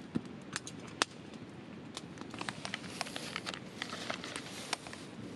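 Firewood burning in a fire stand, crackling with irregular sharp pops over a faint steady hiss.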